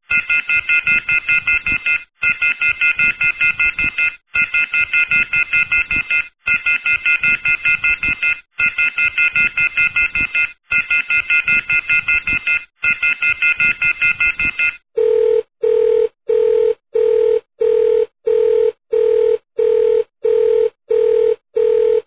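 Electronic telephone ringer trilling in repeated bursts of about two seconds with brief gaps. About fifteen seconds in, it changes to a lower telephone tone beeping on and off about twice a second, like a busy signal.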